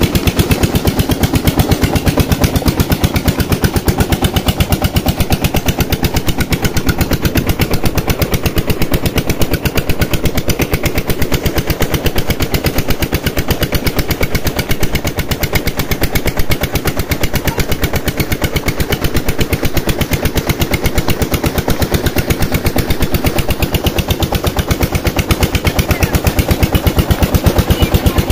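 Tubewell pump engine running steadily with a fast, even knocking beat, and water gushing from its outlet pipe.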